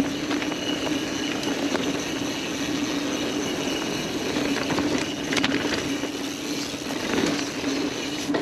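Mountain bike rolling fast over a dirt woodland trail: steady tyre and riding noise with a constant hum underneath, and short rattles of the bike over bumps, the sharpest about five seconds in.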